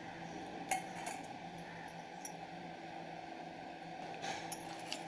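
Quiet room background: a faint steady hum, with a light click about a second in and a few faint ticks near the end.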